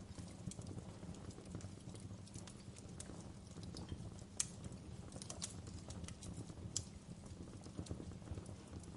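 Wood fire crackling: a steady low rumble of flames with irregular sharp pops and snaps of burning logs, the loudest about halfway through and again near two-thirds.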